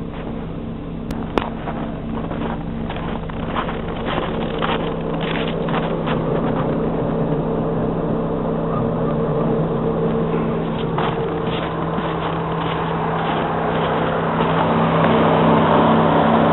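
Car engine idling steadily, with two sharp clicks about a second in and a hissing noise building up over the last few seconds.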